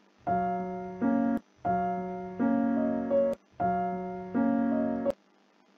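Keyboard music: a short phrase of held chords played three times over, each time moving to a second chord near its end, cutting off abruptly about five seconds in.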